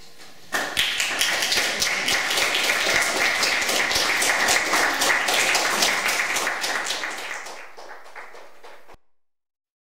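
Audience applause: dense clapping breaks out about half a second in, thins out after several seconds and cuts off abruptly near the end.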